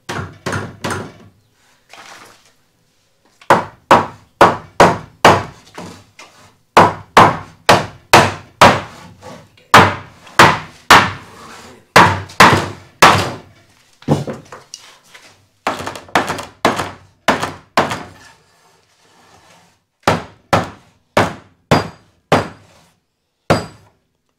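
Hammer blows on a wooden block held against the diagonal brace of a timber gate frame, knocking the brace into its joint. Sharp wooden thunks about two a second, in runs broken by short pauses.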